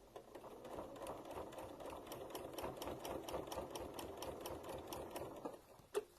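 Sewing machine stitching steadily at an even speed for about five seconds, then stopping, followed by a single click.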